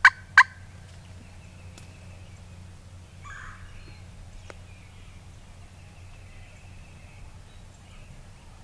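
Wooden turkey box call giving the last two sharp, evenly spaced notes of a calling series within the first half second, then only a quiet background with a faint steady low hum.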